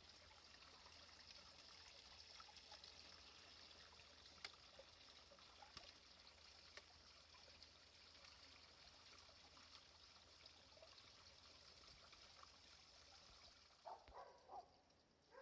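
Near silence: a faint, steady hiss of outdoor ambience with a few soft ticks.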